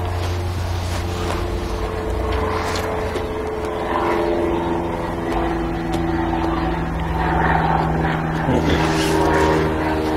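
A motor engine running steadily, with a low hum and a few steady tones that shift slightly in pitch.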